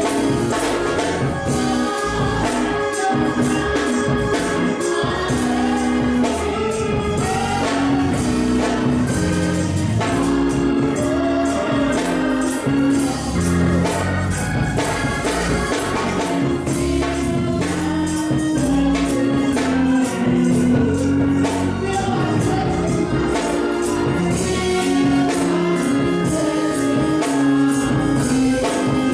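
Live gospel worship music: singing over a drum kit and tambourine, continuous and steady in level.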